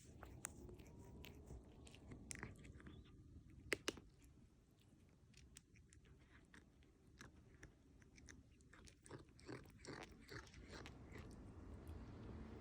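Ginger tabby cat gnawing and biting at its own claws: soft, quick chewing clicks and nibbles, with two sharper clicks about four seconds in.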